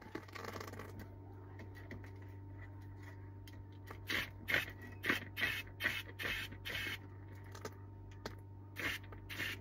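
A pipe cleaner being worked back and forth through a sunroof drain, heard as a run of short scraping strokes about twice a second in the second half. The drain is clear, with little resistance. A steady low hum runs underneath.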